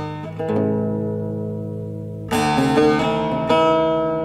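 Background music on a plucked string instrument: a chord rings and slowly fades, then a fresh chord is struck a little past halfway and rings on.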